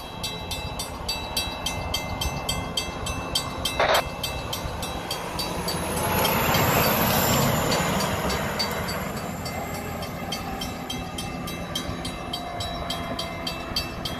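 Fire engine driving on the road: steady engine and road rumble, swelling louder for a few seconds around the middle before settling back. A single sharp click about four seconds in.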